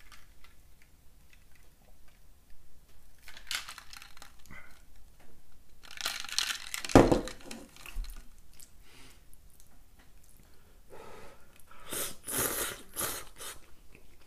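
A person eating noodle soup, chewing and slurping noodles from the bowl, with a cluster of loud slurps near the end. A single sharp knock about halfway through is the loudest sound.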